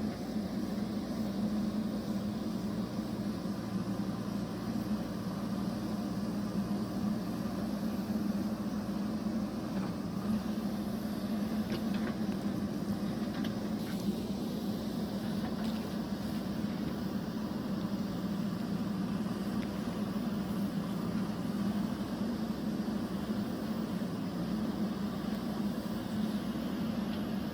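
JCB backhoe loader's diesel engine running at a steady speed, a constant low hum with a few faint clicks.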